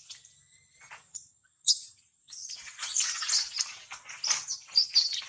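Baby macaque squealing and shrieking in rapid high-pitched cries from about two seconds in, the distress of a baby being dragged off by a young monkey. Faint short chirps come before.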